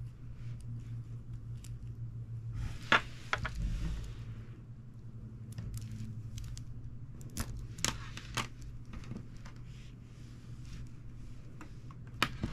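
Plastic coil springs being stretched, twisted and released by hand: a rustle of plastic rubbing on plastic about three seconds in, then scattered sharp clicks and taps as the coils snap back and knock together, with a last pair of loud clicks near the end. A faint low hum runs underneath.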